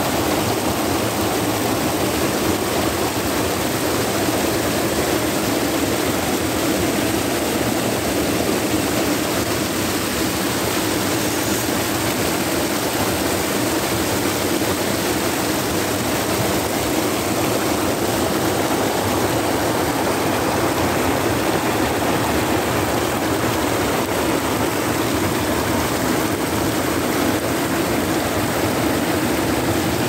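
Creek water rushing steadily over a small waterfall and through the shallows, an even, unbroken rushing noise.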